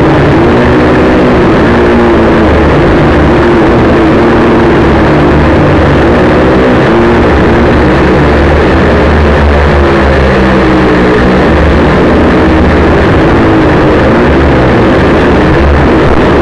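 Quadcopter's electric motors and propellers buzzing loudly, the pitch wavering up and down as the throttle changes.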